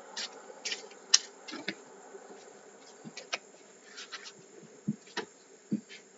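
Tarot cards being handled between readings: a scattered run of light clicks and flicks as cards are drawn and laid down, over a faint steady hum.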